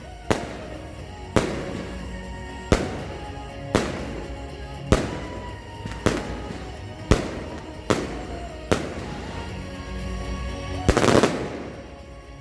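Consumer firework battery firing single shots, a sharp bang about once a second, then a quick, louder cluster of bangs near the end.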